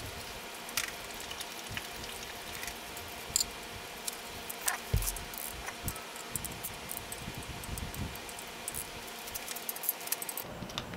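Faint scattered clicks and ticks of a small hand ratchet and steel bolts being run in to hold the camshaft thrust plate on a bare LS V8 block. The bolts are only snugged, not torqued. There is a soft thump about five seconds in.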